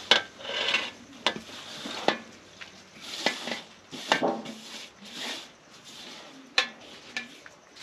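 Chopped greens scraped by hand off a metal tray into a metal pot of boiling water. The tray knocks against the pot's rim about six times at uneven intervals, with soft rustling scrapes in between.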